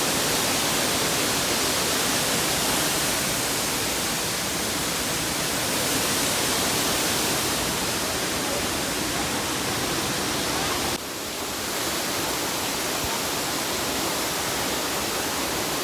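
Steady rush of water from a waterfall, with a sudden slight drop in level about eleven seconds in.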